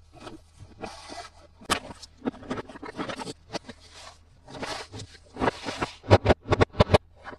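Plastic toys and packaging being handled: a string of sharp taps and clicks with a few scratchy rustling scrapes between them, the loudest clicks coming about six seconds in.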